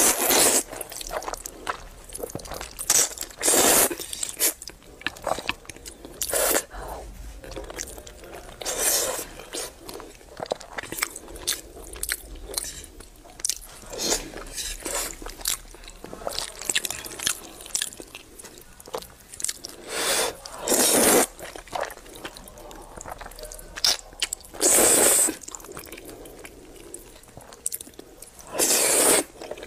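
A person eating saucy noodles with chopsticks: several loud slurps a few seconds apart, with chewing between them.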